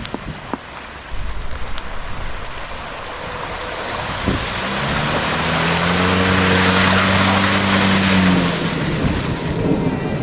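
Off-road 4x4 SUV engine revving hard for about four seconds from midway, rising, holding and then dropping away, under a loud rushing noise of wind on the microphone and splashing mud or water that swells and fades with it.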